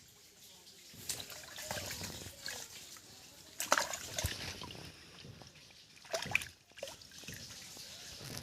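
Water sloshing and trickling, with two sharper splashes about four and six seconds in.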